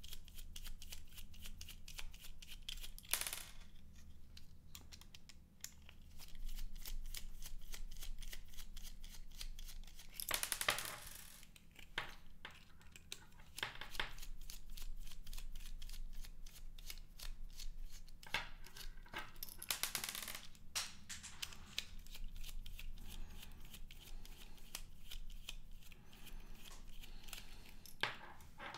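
Small screwdriver turning out the tiny screws of a copper-clad plate: many faint ticks and small metal scrapes, with a few louder handling rustles about three, ten and twenty seconds in.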